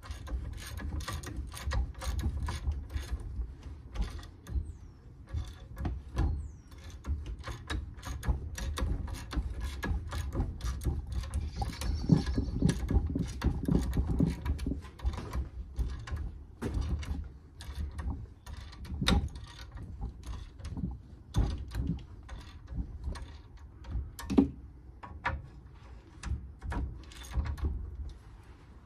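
Ratchet wrench clicking rapidly in runs as it winds a coil-spring compressor tighter on a suspension spring, with a few louder metal knocks.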